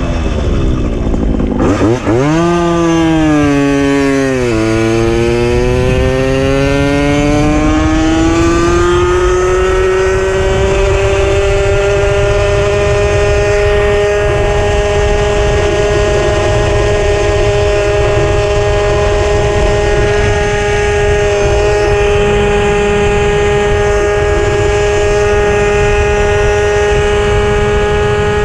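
Puch Maxi moped's 49 cc single-cylinder two-stroke engine under way: it revs up sharply about two seconds in, dips briefly, then climbs steadily in pitch and settles to a steady cruising note for the rest of the time. Constant low wind rumble on the action camera's microphone runs underneath.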